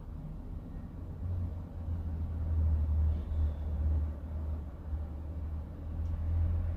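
Strong wind buffeting the microphone: a low, gusting rumble that swells about a second in and stays strong through the middle.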